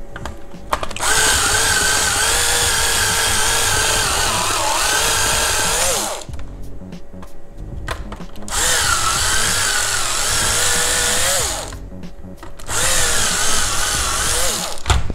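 Electric drill with a 10 mm bit running in three bursts of a few seconds each, its whine wavering and dipping as the bit bites. It is shaving off the melted plastic stakes that hold the circuit board in the instrument cluster housing.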